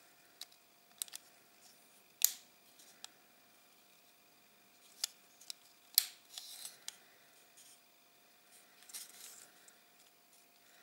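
Plastic fuselage halves of a 1/72 Revell Stearman Kaydet kit clicking and rubbing against each other as they are pressed together and turned in the fingers. There is a series of sharp clicks, the loudest about two and six seconds in, with short scraping rubs just after the second loud click and again near the end.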